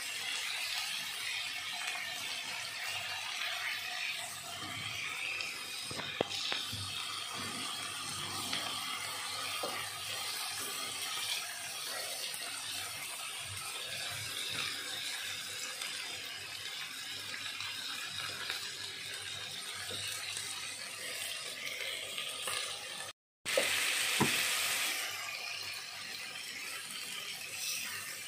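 Chicken pieces sizzling steadily as they fry in oil over high heat in a pot, with a few light knocks of a spatula against the pot. The sound breaks off briefly about 23 seconds in and returns louder.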